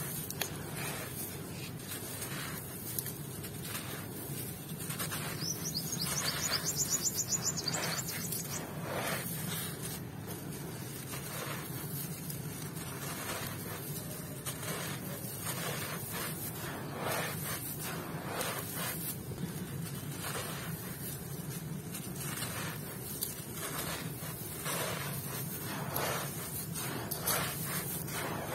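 Hands scooping, squeezing and sifting dry sand mixed with fine crushed-stone grit: a gritty crunching and trickling hiss in repeated irregular strokes, a little louder about six to eight seconds in.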